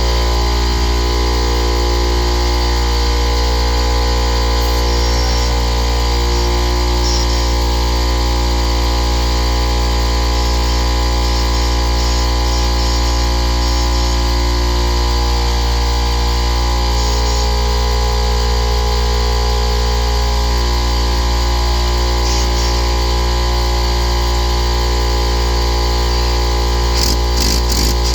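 Rebuilt air compressor, a Ridgid motor and pump on a larger tank, running under power with a loud, even hum and a mechanical drone that holds steady throughout its first test run.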